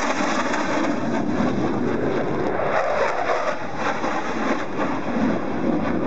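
F-16 fighter jet's single turbofan engine heard in flight, a steady, loud rushing noise that wavers slowly.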